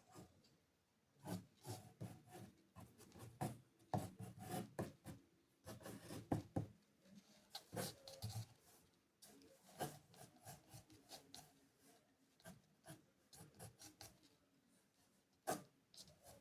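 Faint, irregular scratching and rubbing strokes of an artist's tool working on the painting surface, coming in short clusters with brief pauses between them.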